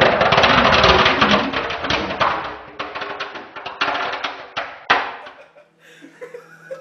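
A firework burning inside a microwave oven: a dense, loud fizzing crackle that thins out after about two seconds into scattered pops and dies away about five seconds in. A low steady hum from the running microwave is left.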